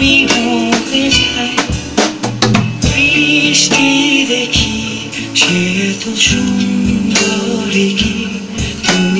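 Band music: a drum kit keeps a steady beat under a sung melody.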